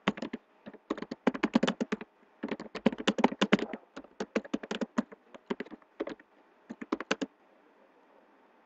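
Typing on a computer keyboard: quick runs of key clicks with short pauses between them, stopping near the end.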